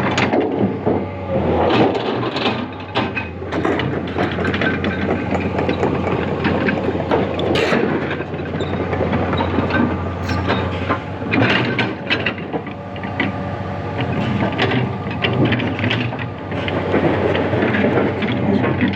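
Komatsu hydraulic excavator's diesel engine running steadily under frequent short metallic clanks and knocks, the sound of heavy steel plates and machinery being worked.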